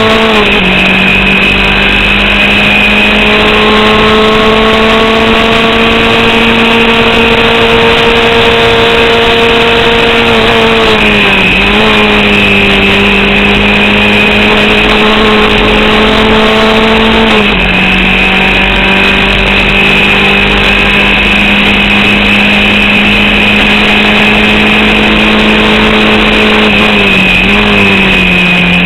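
Formula Vauxhall 8-valve race car engine running hard at a nearly steady pitch, creeping up slowly and dipping briefly three times as at gear changes. The engine is misfiring, and an alternator/battery fault is draining its power so that only about 4500 rpm is available.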